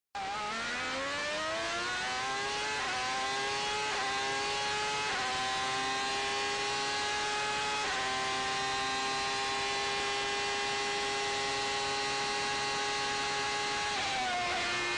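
Ferrari 412 T2's 3.0-litre V12 Formula One engine at full throttle, its pitch climbing through quick upshifts about three, four, five and eight seconds in. It then holds high and steady, and the pitch drops near the end as the car lifts off.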